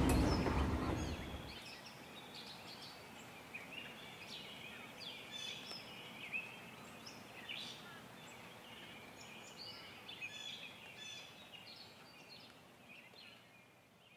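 A passing train's rumble fades away in the first second or two. After it, birds chirping, many short high chirps and twitters, fading out near the end.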